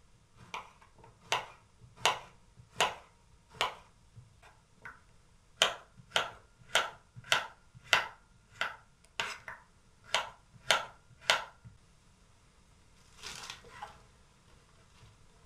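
Kitchen knife slicing a cucumber and then radishes on a wooden cutting board: a run of sharp chops, first about one every second, then quicker at about two a second, stopping a few seconds before the end. A brief softer noise follows near the end.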